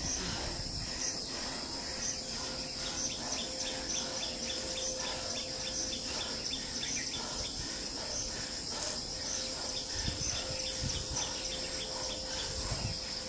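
Steady high-pitched insect chorus with a short chirp repeating over and over through it.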